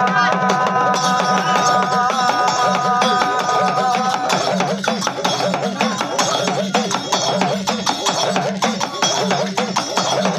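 Gujarati jagar devotional music: a long held note over a steady drum beat, then from about four seconds in, fast, dense drumming.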